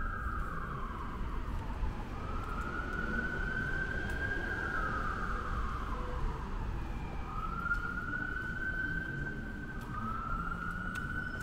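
Emergency vehicle siren in a slow wail: it climbs to a high held note and glides back down about three times. A steady low rumble lies under it.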